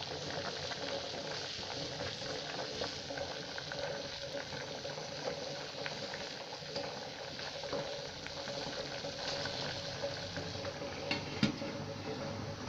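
Food bubbling and crackling steadily in a pan on the heat, with a sharper click about eleven seconds in.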